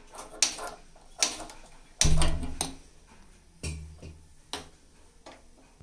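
A few irregular sharp clicks and knocks, the loudest about two seconds in, from a clay cooking pot (chatti) being set and handled on a gas stove's burner grate to heat.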